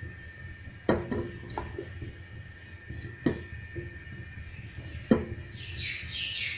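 Cookware clinking and knocking in a home kitchen, four sharp knocks spread across the few seconds, over a low steady hum, with a brief higher-pitched noise near the end.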